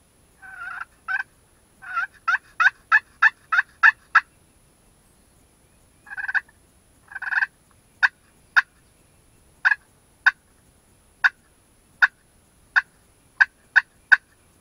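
Wild turkey calling: a run of about eight yelps, then two longer drawn-out notes, then single short sharp clucks spaced half a second to a second apart.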